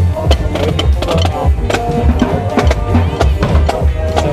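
Loud music with a heavy, regular bass beat and sharp percussion strikes.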